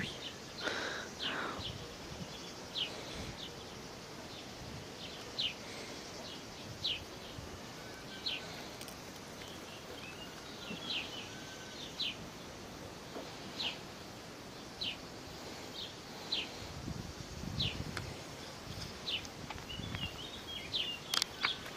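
A bird chirping over and over: short, high, falling chirps about once a second, over a steady background hiss.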